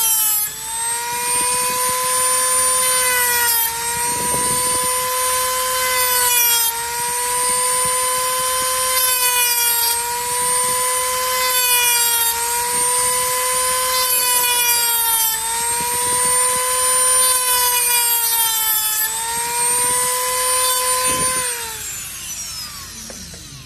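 Hand-held rotary tool with a cut-off disc grinding through a metal ring: a steady whine over a grinding hiss, its pitch sagging briefly about every three seconds as the disc is pressed into the ring. Near the end the tool is switched off and the whine winds down.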